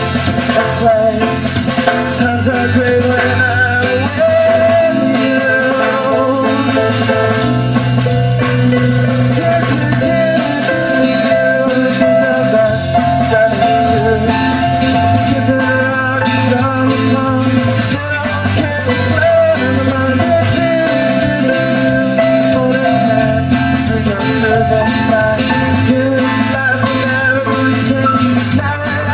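Live band playing a pop-rock song: acoustic guitar strumming over a drum kit, with sustained keyboard notes.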